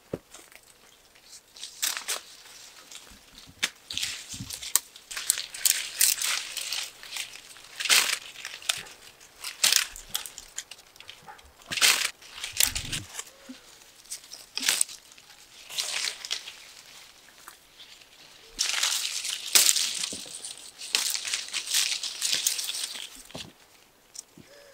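Apple-tree leaves and branches rustling in irregular bursts, with sharp snaps, as apples are pulled off by hand.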